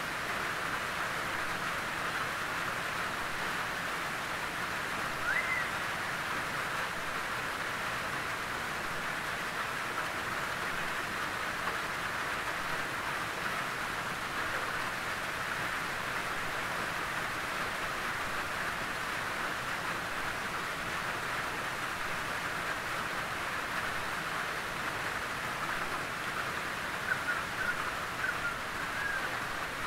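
Gentle rain falling steadily on a tin roof, an even, unbroken patter. A brief rising chirp comes about five seconds in, and a few short chirps come near the end.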